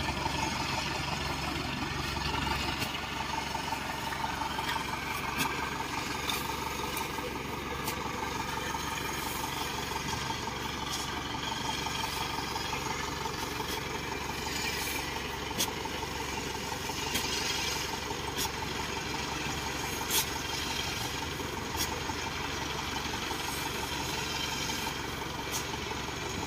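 Rice combine harvester running steadily in the field, an even engine hum with a steady whine over it. A few short clicks and knocks are scattered through.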